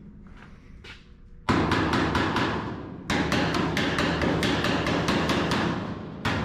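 Rapid, evenly spaced hammer blows on a steel car body panel, about six a second, ringing between strikes. The blows come in runs that start suddenly about a second and a half in and again near three seconds and six seconds.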